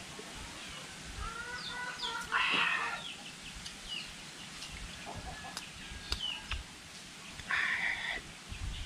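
Chickens clucking and small birds chirping, with two short, louder calls: one about two and a half seconds in and one near the end.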